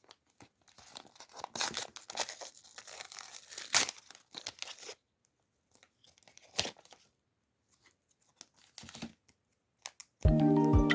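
Packaging being torn open and crinkled by hand, a dense run of tearing and crackling for about five seconds, then a few scattered crinkles. Background music comes back in near the end.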